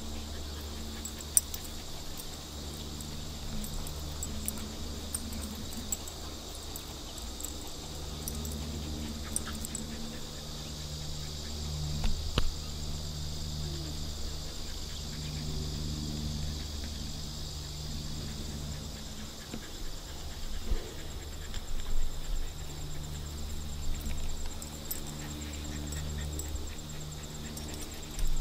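Steady high insect buzzing over a low rumble, with a few short rustles and knocks, most of them a little past halfway.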